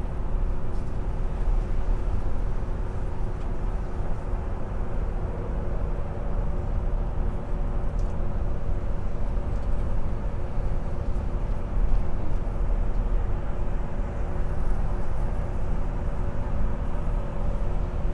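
Interior of a moving bus: steady engine drone and road rumble, with faint rattles of the cabin fittings.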